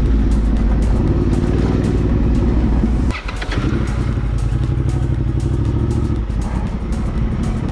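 Honda Transalp XL750's parallel-twin engine running under way through a Mivv Dakar exhaust, with a brief drop in engine sound about three seconds in before it pulls steadily again.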